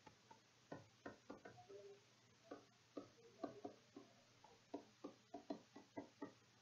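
Faint, irregular light ticks of a stylus tapping on a pen tablet as words are handwritten, about a dozen in all.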